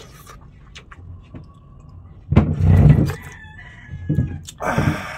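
A rooster crowing in the background, heard twice in the second half. A louder, deeper sound comes a little over two seconds in.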